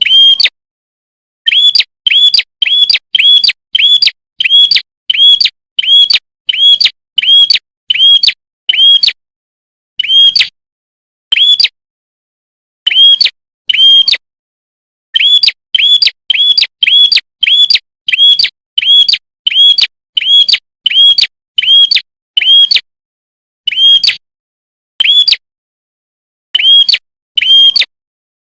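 Prinia (prenjak kepala merah) calling: a rapid series of short, sharp, identical chirps, about two a second. The runs are broken by brief pauses.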